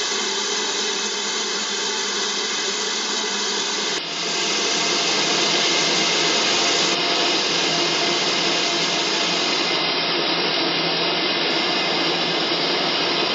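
Steady hiss of steam escaping from a standing steam locomotive, growing a little louder about four seconds in.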